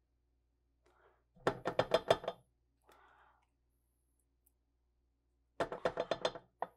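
A metal utensil scraping and clicking inside a small tin can of tomato paste, in two short rattling runs about four seconds apart, with a faint scrape between them.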